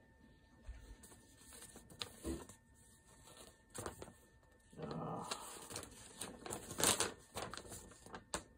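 A CD album and its paper and plastic packaging being handled: rustling and crinkling with scattered clicks, a louder stretch about five seconds in and a sharp click near seven seconds.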